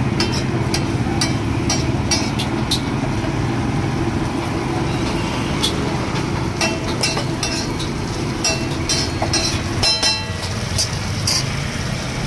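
Slotted metal spatula scraping and tapping on a large flat iron tawa while a runny egg-and-masala mixture is stirred and spread, giving irregular sharp clicks, with a short run of ringing clinks about ten seconds in. Underneath runs a steady low rumble.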